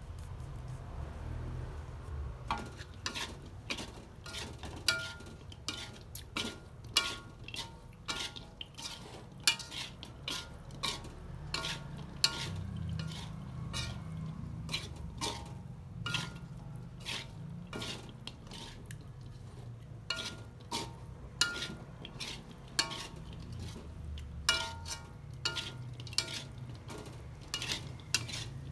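A utensil stirring food in a pan, knocking and scraping against it in many irregular clinks, some with a short ring. A low steady hum runs underneath.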